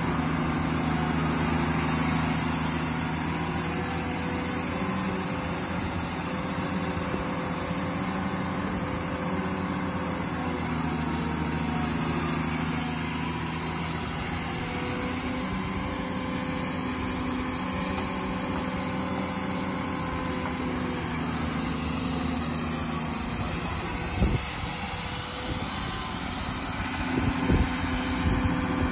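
Tracked drilling rig's engine running steadily while its hydraulics swing the drill mast upright, the engine note shifting a few times under the changing load. A few sharp knocks come near the end.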